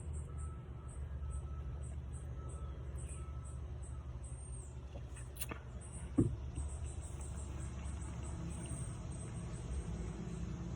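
Steady low hum under a regular high-pitched chirping, about three chirps a second, like crickets. A single sharp click about halfway through, followed shortly by a brief low sound.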